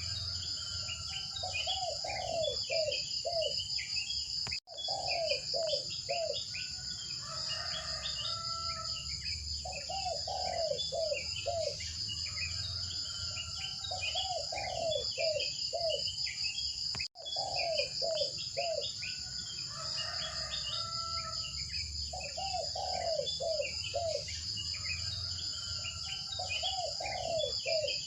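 Nature ambience of insects, a steady fast-pulsing trill like crickets, with many short bird-like chirps over it. The sound cuts out for a split second about four seconds in and again past the middle, as a looped track restarting.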